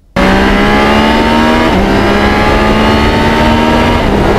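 Motor vehicle engine accelerating hard through the gears, its pitch climbing steadily with an upshift about a second and a half in and another near the end. Loud, starting abruptly.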